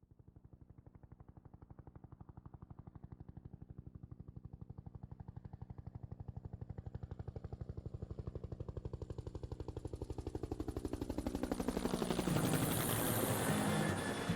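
Huey helicopter rotor blades beating in a fast, even thump, growing steadily louder as it approaches, with a rising hiss in the last few seconds.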